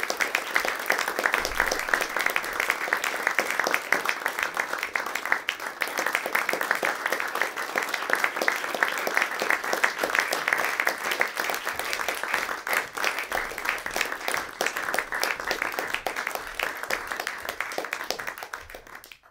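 Audience applauding: dense, steady clapping from a small crowd that thins out near the end and cuts off.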